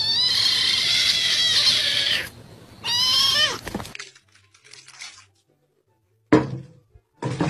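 Orange-and-white kitten giving a hoarse, cracking "broken meow": one long high call of about two seconds, then a shorter call that falls in pitch about three seconds in.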